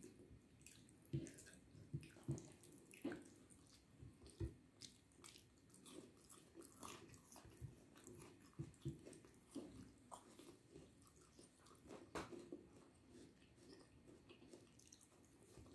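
Close-up sounds of a person eating rice and egg curry by hand: chewing with many short, irregular mouth clicks, and fingers gathering food on a plate.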